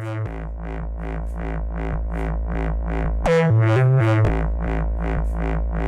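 Electronic intro music: a steady pulse of about three hits a second over a deep, sustained bass, with a short break about three seconds in where the bass drops out before the beat returns.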